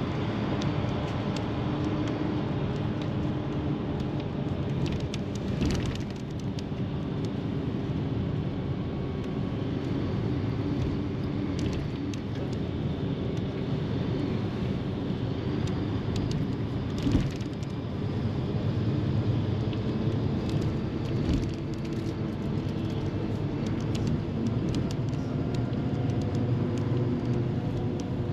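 Highway bus running at steady speed: even engine and road noise with a low hum and occasional small knocks.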